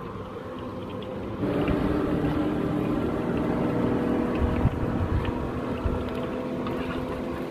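A motor engine running with a steady drone that swells louder about a second and a half in, over the sizzle of fish deep-frying in oil in a wok on a wood fire.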